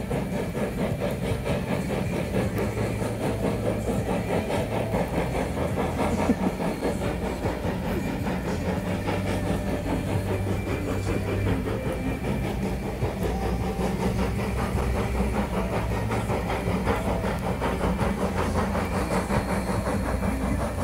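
Strasburg Rail Road steam train passing: the locomotive's steam exhaust and hiss, with the passenger cars rolling along the rails.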